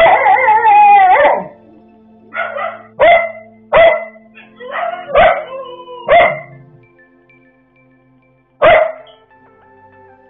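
Dogs in a fight: a long, wavering, high yelp of distress, then a string of short, sharp yelps and barks, and one last one after a pause near the end.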